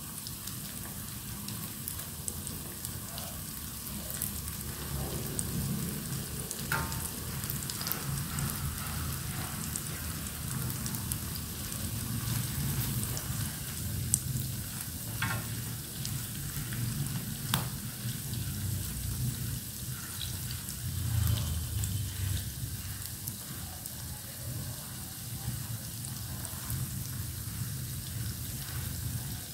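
Tofu slabs sizzling as they shallow-fry in oil in a nonstick pan, a steady frying hiss. A few sharp clicks of wooden chopsticks against the pan come through as the golden-browned pieces are turned over.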